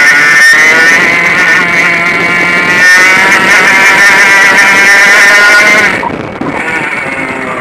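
100cc two-stroke kart engine running hard under throttle, its note climbing steadily as the kart accelerates. About six seconds in the engine note drops and goes quieter as the throttle is lifted.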